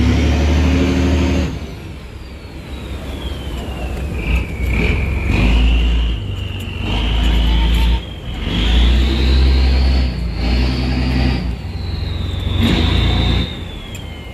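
Diesel engine of a loaded cargo boat being throttled up and down in repeated surges while the boat turns around against the current, with a high whine that falls and rises with the engine speed.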